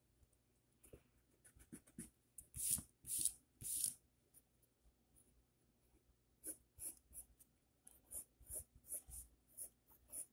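Pencil scratching on paper in drawing strokes: three longer strokes about three seconds in, a short pause, then a run of quick short strokes in the second half.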